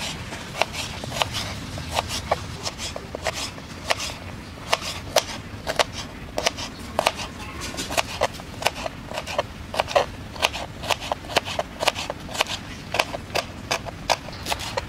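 Kitchen knife cutting raw carrot into sticks and then dice on a cutting board: a run of sharp knocks, about three a second and unevenly spaced, as the blade strikes the board.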